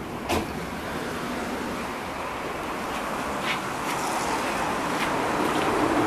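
Running noise of a Valmet MLNRV2 tram in motion, heard from inside the car: a steady rolling noise that grows louder across the few seconds, with a sharp knock shortly after the start and a few faint ticks later.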